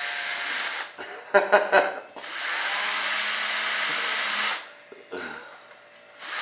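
Power drill running in bursts: one run stops about a second in, a few knocks follow, then a steadier run of about two and a half seconds, and a short burst comes near the end.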